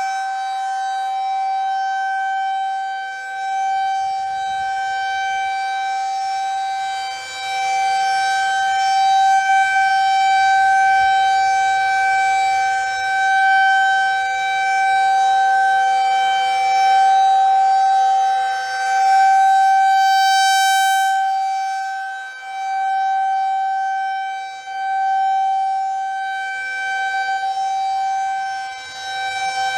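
Federal Signal 2001 rotating outdoor warning siren sounding a steady single-pitch alert tone during a routine siren test. It is loud, and it swells and fades every few seconds as the rotating horn sweeps toward and away from the listener.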